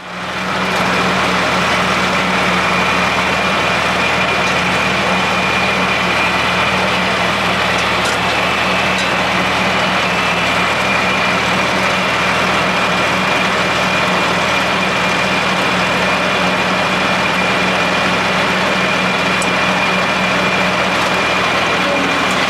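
Tractor engine running steadily, with a steady high whine above it.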